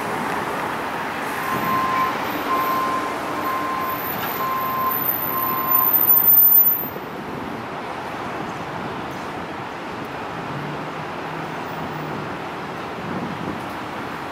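City street traffic noise, with a vehicle passing loudly about six seconds in and then a quieter steady hum of traffic. A high electronic beep sounds five times, about once a second, during the first six seconds.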